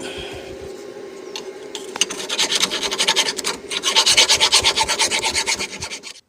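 Rapid back-and-forth scraping strokes, as of a hand tool worked hard against the mower, starting about two seconds in over a steady hum and cutting off suddenly near the end.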